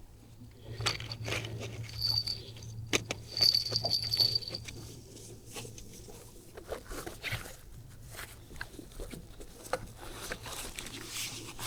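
Clicks, knocks and rustling of fishing gear being rummaged through by hand, busiest in the first few seconds, with a thin high tone twice around two and four seconds in, over a steady low hum.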